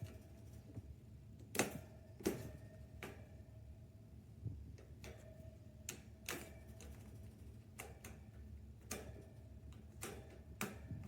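Irregular light clicks and knocks, about a dozen, spaced unevenly, a few of them followed by a faint brief ring.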